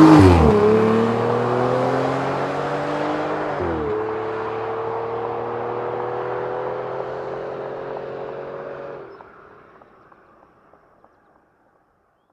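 Car engine accelerating through gear changes, its pitch dropping at each shift about four seconds apart, then slowly climbing. The sound grows fainter and dies away about nine seconds in.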